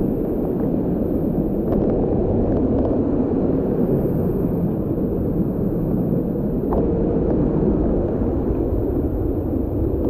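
Waterfall rushing steadily, a deep, even noise of falling water. Two faint clicks, about two seconds in and near seven seconds.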